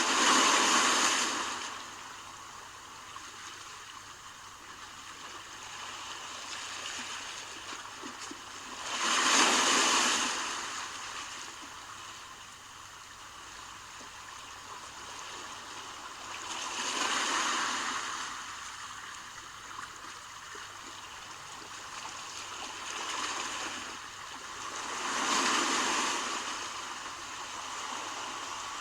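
Sea waves breaking and washing onto the shore: four loud rushes of surf about eight seconds apart, a smaller one between the last two, with a softer steady wash in between.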